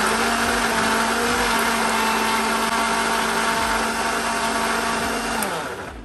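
Electric countertop blender running at a steady speed, blending popcorn into cream. About five and a half seconds in, its motor hum drops in pitch and dies away as it is switched off.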